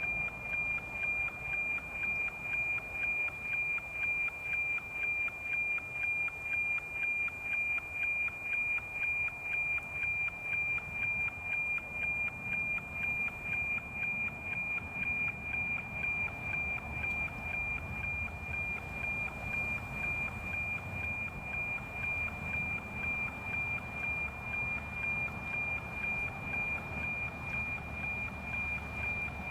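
NOAA 19 weather satellite's APT image signal, received with an RTL-SDR and FM-demodulated: a steady high tone with an even tick-tock pulse about twice a second. Each pulse is one image line being received and decoded into a picture.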